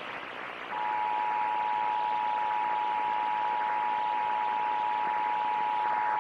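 Emergency Alert System attention signal: two steady tones sounded together, starting under a second in and held without a break. A constant hiss of radio reception lies under it.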